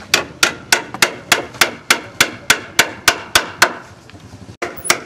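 Steel hammer striking a wooden furniture frame in a quick, even run of about a dozen blows, roughly three a second, then a pause of about a second before the blows start again near the end.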